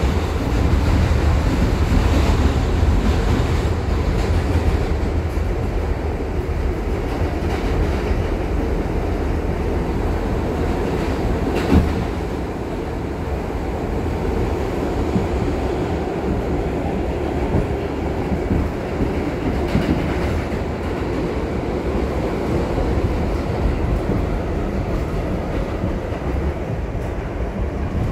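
Inside a moving New York City subway car on the 1 line: the steady low rumble and rattle of the train running on the track, with one sharp knock near the middle.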